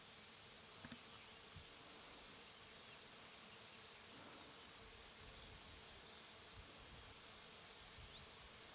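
Faint high-pitched insect chirping, a short chirp about twice a second, over a near-silent meadow background with occasional low rumbles.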